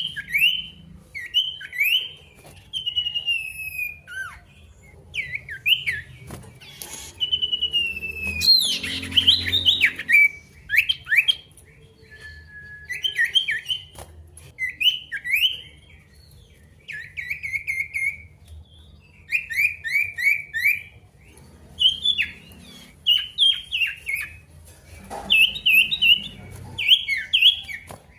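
Male sirtu songbird singing in repeated phrases of quick, high chirps with short pauses between them: the energetic rival-calling song kept as a lure to set other sirtu singing.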